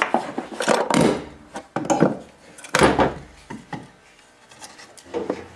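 A wooden drawer runner, held by a nail, being pried and knocked loose from the carcass of a chest of drawers: a string of sharp wooden knocks and cracks, the loudest about three seconds in, then it goes quiet.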